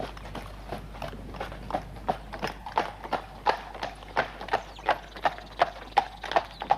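Horse's hooves clip-clopping in an even rhythm, about three strikes a second, growing louder from about halfway through.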